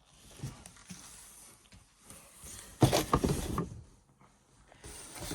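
Packaging and parts being handled during unboxing: irregular rustling and scraping, with a louder clatter nearly three seconds in.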